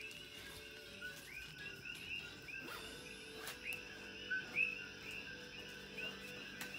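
A chorus of coqui frogs calling, many overlapping short two-note chirps that rise in pitch and repeat several times a second. A couple of soft knocks come about four and a half seconds in.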